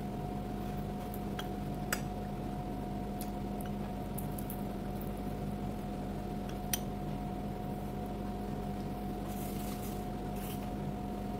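A person eating by hand at a plate: quiet chewing and handling of food, with two sharp clicks about two seconds in and near the middle. A steady low hum runs underneath throughout.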